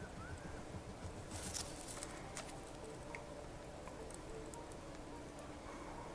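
Fine-tip pen drawing on a sheet of acetate: faint scratchy strokes and light taps, with a brief louder rub about one and a half seconds in.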